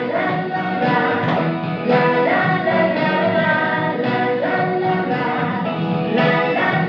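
A sung pop song, with vocals over instrumental backing, playing at a steady level.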